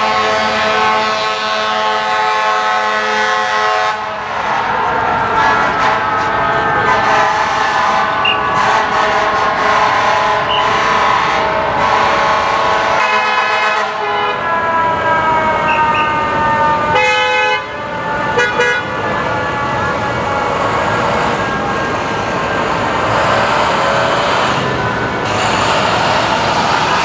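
Fire trucks responding with air horns and sirens over city traffic. A steady horn blast opens. A siren's pitch then slowly falls for several seconds. Short horn blasts come around the middle, and a siren rises again near the end.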